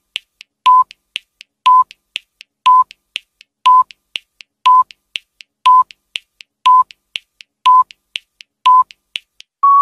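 Countdown timer sound effect: a short beep once a second, with fainter ticks between the beeps, and a longer, slightly higher tone starting near the end to signal that time is up.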